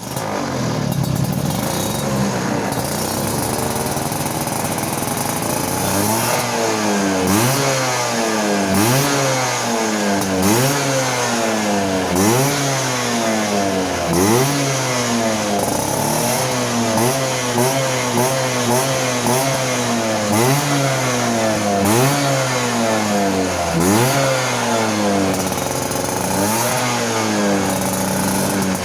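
Vespa PTS 100 smallframe scooter's two-stroke single-cylinder engine running at a steady low speed, then revved in repeated throttle blips about every couple of seconds. Each blip rises sharply and falls back, with the crisp crackle of the tuned exhaust as the revs drop.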